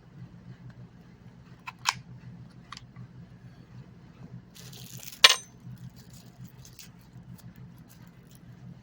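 Knife gear being handled: a few light clicks, then a brief rustle and a sharp snap about five seconds in, over a steady low hum.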